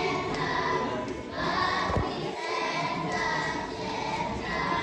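A choir of children singing together, a held, phrased melody.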